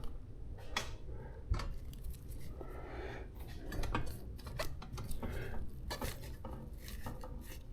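Light clattering knocks, clicks and rubbing as an e-bike lying on its side is turned over and handled.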